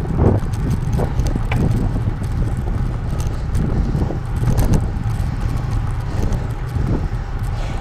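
Wind buffeting the microphone of a handlebar-mounted camera, over a steady low rumble and irregular rattles from a bicycle rolling along a paved street.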